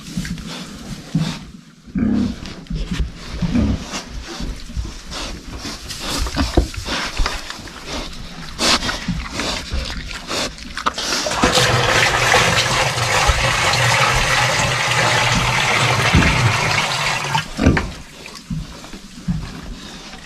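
Pigs grunting and snuffling at their feed, then water rushing steadily into their waterer for about six seconds from just past the middle, before the pig noises come back.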